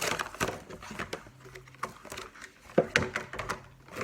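A silicone case being handled and fitted onto a smartphone: irregular taps, clicks and rubbing, the sharpest click about three seconds in.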